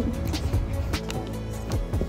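Background music with sustained tones over a bass line, punctuated by sharp percussive strokes.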